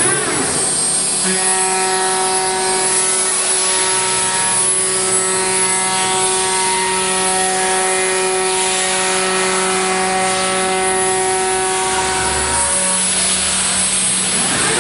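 CNC router spindle running with a steady whine while its cutter mills a door panel pattern into a wood board, over the hiss of cutting.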